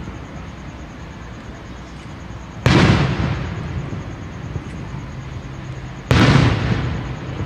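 Aerial fireworks shells bursting: two loud booms about three and a half seconds apart, each trailing off in a rumbling echo, over a steady background rumble of further bursts.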